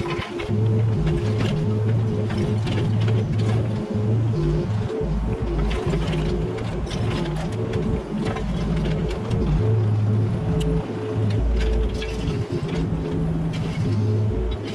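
Mini excavator's diesel engine running under changing hydraulic load, with repeated knocks and scrapes from the bucket working debris.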